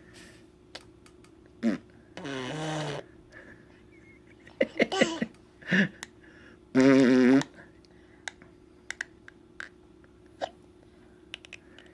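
A baby making a string of short voiced sounds and babbles, with a louder buzzing raspberry blown through the lips about seven seconds in. Faint small clicks fall between them.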